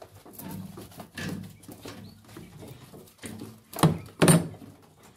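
Pigeons cooing: repeated low coos. Two loud sharp knocks come close together about four seconds in.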